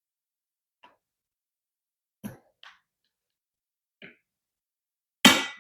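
Hardware and tools knocking against a steel bed frame during assembly: four light clicks and taps spread over the first four seconds, then a louder metallic clank near the end that rings briefly.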